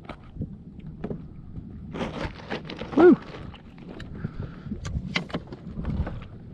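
Small knocks and clicks of fishing tackle being handled aboard a plastic kayak while a bait is put on the hook and the rod is readied. About three seconds in comes a brief pitched sound that rises and falls, the loudest thing heard.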